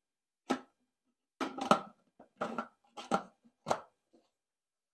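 Kitchen items being handled: about six separate sharp knocks and clatters over four seconds, the loudest a little before the middle.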